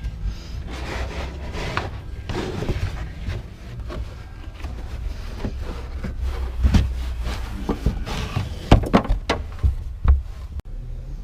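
Irregular knocks, clicks and rustling of hands handling parts and wiring, over a low rumble, with several sharper knocks in the second half.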